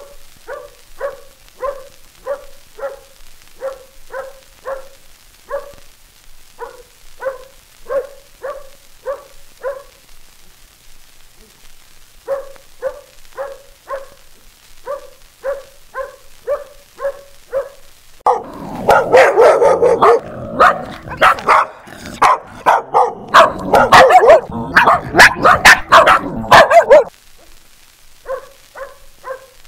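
A dog barking in an even series of short, alike barks, about two a second, with brief pauses. A little past halfway, louder and much faster barking takes over for several seconds, then the even barks resume near the end.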